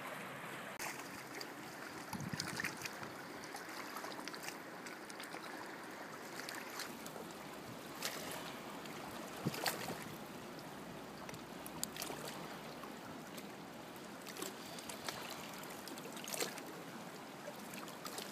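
Choppy river water lapping and sloshing close by, a steady wash with a few sharp slaps or knocks scattered through it.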